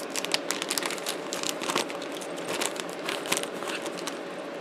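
Thin plastic zip-lock bag crinkling and rustling in the hands, a run of irregular small crackles.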